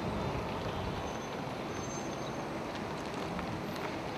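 Steady motor-vehicle noise with a few faint ticks.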